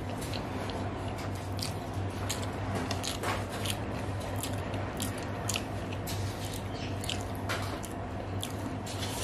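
Close-miked eating: a person chewing a mouthful of rice with wet, smacking mouth sounds, while fingers squish and mix rice on a plate. The many short, irregular clicks play over a steady low hum.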